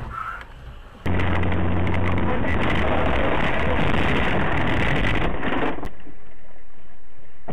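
Loud, steady rushing road and wind noise from a moving car, heard through an in-car camera's microphone, with a low hum in its first second or so. It starts abruptly about a second in.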